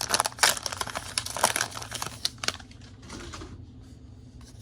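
Foil wrapper of a Pokémon booster pack crinkling as it is handled and opened: dense crackling for the first two and a half seconds or so, then softer and sparser.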